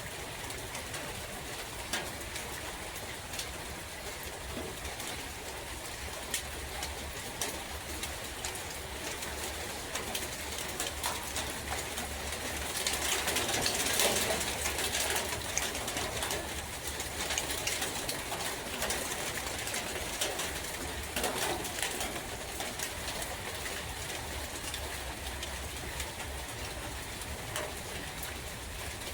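Steady forest rain with scattered drop ticks, and a bird cooing through it. The rush grows louder for a few seconds about halfway through, then settles back.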